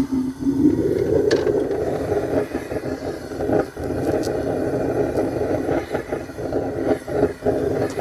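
Gas burner of a propane crucible furnace running steadily, with a few scrapes and clicks from a metal rod stirring aluminium in the crucible.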